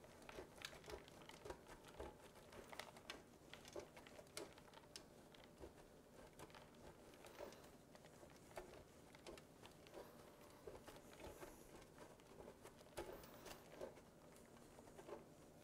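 Cheese being grated by hand on a stainless steel box grater: faint scraping strokes, about two a second.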